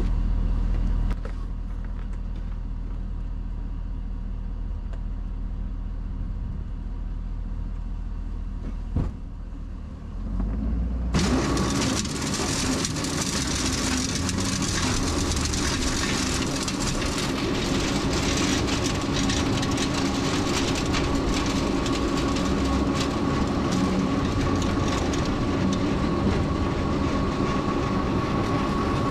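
Truck engine running with a low rumble, then about eleven seconds in the truck-mounted sand spreader starts up: a loud, steady mechanical rattle with a held whine as it throws sand.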